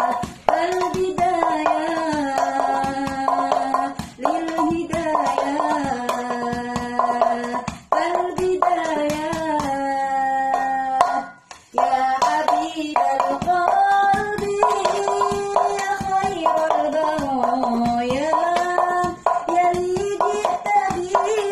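Hands slapping a Teflon frying pan played as a makeshift darbuka, in a quick, dense rhythm. A sung religious melody (sholawat) goes on over it, in phrases broken by short pauses.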